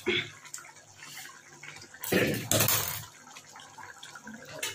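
Thin fish curry with potatoes simmering in a kadai on a gas burner, bubbling softly. A louder rush of noise comes about two seconds in and lasts about a second.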